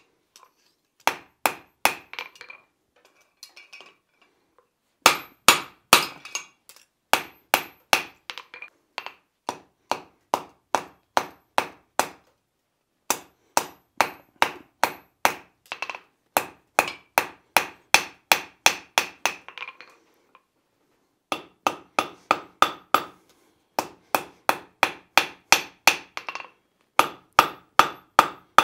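Blacksmith's hand hammer striking a hot steel hinge strap on the anvil face, drawing out a taper. The blows come in quick runs of about three a second with short pauses between runs, and the anvil rings on each blow.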